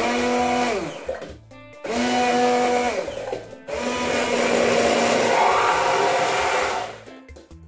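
Electric kitchen blender run in three bursts, its motor pitch dropping as it spins down after each one, grinding tomatoes, shallots and garlic into a smooth spice paste.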